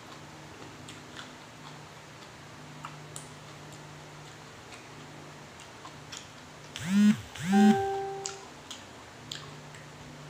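Soft mouth clicks of someone chewing food. About seven seconds in, a loud musical sound effect cuts in: two swooping notes that rise and fall, then a held note that stops about a second later.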